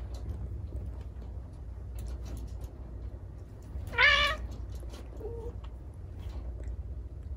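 Cat giving one short, loud, wavering yowl about four seconds in, an angry protest cry in a squabble between two cats. A faint short cry follows about a second later.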